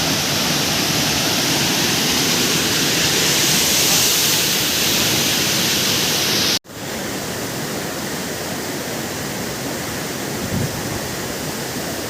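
Waterfall's steady rush of falling water. About two-thirds of the way through it cuts out for an instant and comes back slightly quieter and less hissy.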